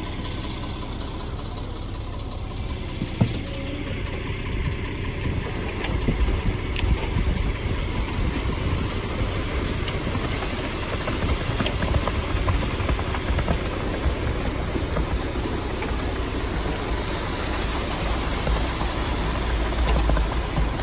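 Concrete mixer truck's diesel engine running steadily while concrete is discharged down its chute, the low rumble growing louder about six seconds in.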